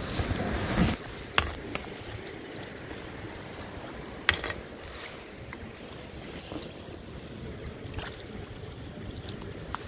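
Steady wash of river water against the rocks with some wind on the microphone, under handling of a whitebait net: a rustle in the first second and a few sharp knocks, the loudest about a second and a half and about four seconds in.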